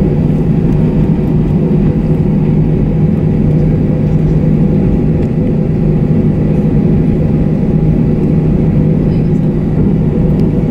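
Steady drone of an Airbus A321-232's IAE V2500 engines and airflow heard inside the passenger cabin, a constant hum with a few held tones and no change in pitch or level.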